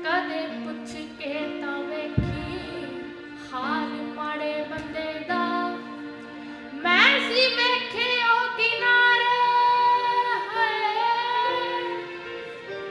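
A girl singing a Punjabi song in long held notes that slide between pitches. There is a low thump about two seconds in.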